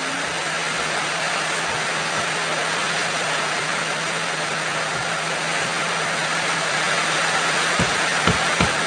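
Heavy rain falling, a steady even rush of noise. Near the end a quick run of soft low thumps begins, about three a second.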